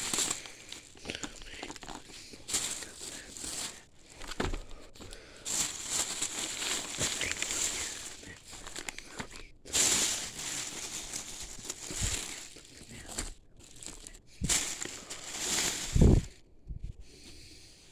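Packaging crinkling and rustling in irregular bursts as fireworks are handled, with a soft thump near the end.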